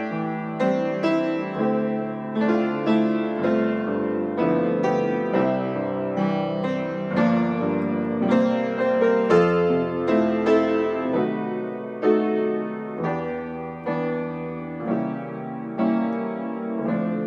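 Solo piano playing a hymn, notes and chords struck about twice a second and left to ring.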